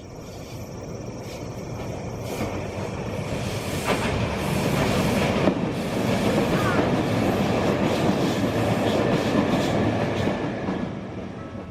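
A train passing by: rumbling wheels on rails that grow louder over the first few seconds, stay loud through the middle and fade near the end.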